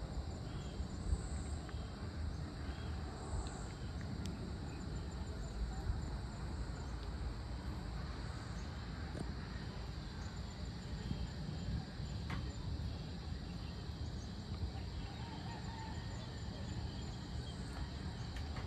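Outdoor evening ambience: insects keep up a steady high drone with scattered faint chirps, over a constant low rumble.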